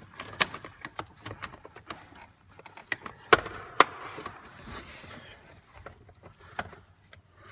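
Plastic steering-column shroud halves being handled and fitted around the column: a run of light clicks and knocks, with two sharper plastic clicks about half a second apart midway.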